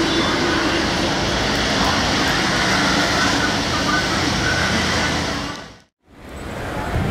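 Rolls-Royce-powered Boeing 747-200 freighter's four jet engines running as the aircraft moves on the runway: a steady, loud roar that fades out about six seconds in.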